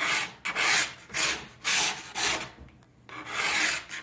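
Sharpening stone (300 grit) rasping along the steel edge of a skibike ski in repeated one-way strokes, about six of them, each a short hiss, the last one longer.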